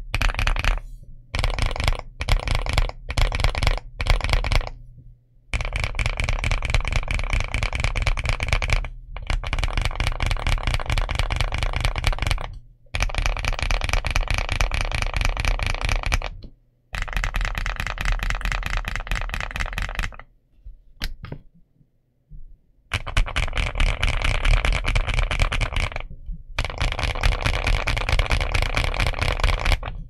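Typing on a Marvo x ColorReco A75 low-profile mechanical keyboard with Kailh White Peach low-profile switches: rapid keystroke clacks in runs of a few seconds, broken by brief pauses. The first few seconds hold short separate bursts, and there is a longer pause a little past the middle.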